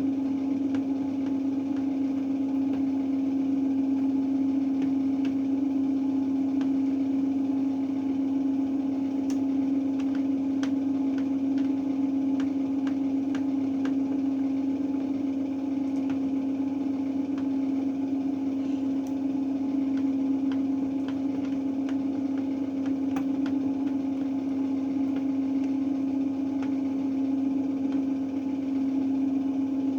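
Beko WRE7532XO washing machine running with a steady, even hum and a few faint ticks.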